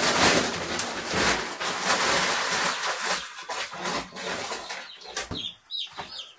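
Cobb 500 broiler chicks peeping, with a dense rustling noise through the first half. Short peeps and a few sharp knocks come through more clearly near the end.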